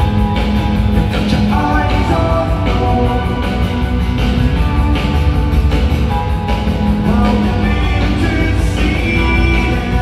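A live rock band playing in an arena, with electric guitars, drums, keyboards and singing, heard from within the crowd.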